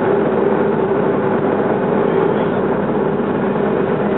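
Steady cabin drone of a Boeing 737-300's CFM56 jet engines at low taxi power, heard from inside the cabin over the wing, with a steady low hum running through it.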